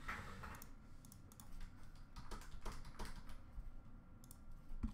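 Faint computer keyboard typing and scattered clicks, a few light taps at uneven intervals.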